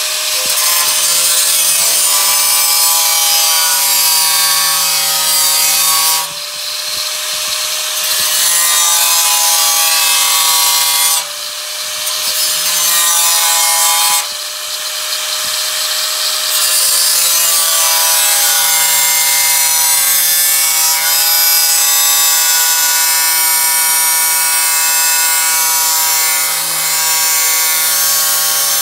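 Power tool cutting the lip of a steel floor pan, a steady whine over a harsh grinding hiss. It stops briefly three times before cutting on.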